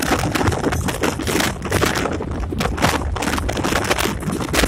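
Cab interior of a moving EMD SD24 diesel locomotive: the engine's steady low rumble under constant, irregular rattling and clatter as the cab rides over rough track.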